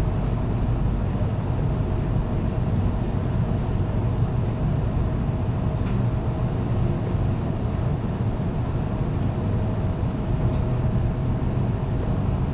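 Tram running steadily along street track, heard from inside the passenger cabin: a continuous low rumble with a faint steady whine that fades out near the end.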